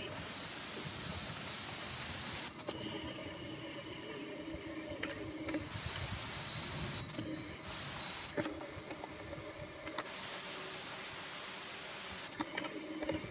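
Tropical rainforest ambience: insects buzzing and droning steadily in high tones, with stretches of layered buzzing that start and stop every few seconds. A short, high call that falls in pitch is repeated several times.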